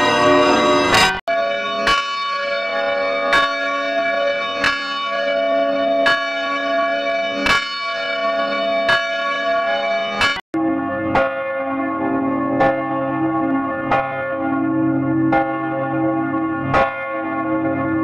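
A large swinging church bell struck by its clapper about once every 1.4 seconds, each stroke ringing on into the next. The sound cuts off abruptly about a second in and again about ten and a half seconds in, each time resuming with a different bell ringing at the same steady pace.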